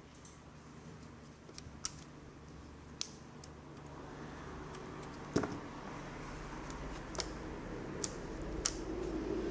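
Scattered sharp clicks and taps, about six of them, from small plastic and metal laptop parts being handled during netbook disassembly. The strongest click comes about five and a half seconds in. A low steady hum grows louder through the second half.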